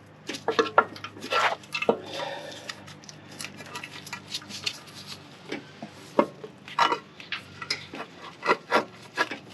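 Irregular clicks, taps and knocks of hands handling metal engine parts while working a hose onto a fitting on a timing cover, the struggle heard as scattered sharp clacks rather than any steady sound.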